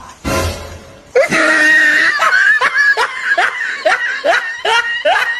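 Laughter: a loud run of short, repeated high laughs, about two or three a second, starting about a second in after a brief noisy burst.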